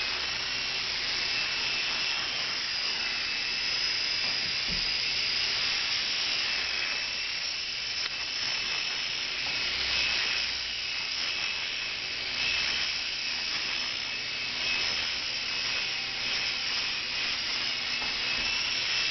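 Blade mCX micro coaxial RC helicopter in flight: its small electric motors and rotors make a steady high whine that wavers slightly in pitch.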